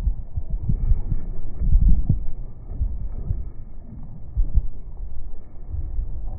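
Wind buffeting the microphone on a boat at sea, with boat noise, slowed down with the slow-motion footage into a deep, uneven rumble.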